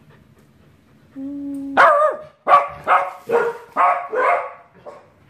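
A rough collie gives a short held whine, then barks about six times in quick succession: play barking.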